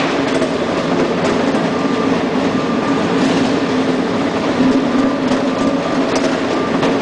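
24 V DC roller conveyors running, with plastic totes rolling over the rollers: a steady mechanical rumble with faint scattered clicks.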